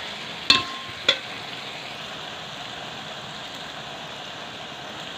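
Onions and ginger-garlic paste sizzling steadily in hot oil in a metal pot. A metal spoon knocks against the pot twice within the first second or so, each knock ringing briefly.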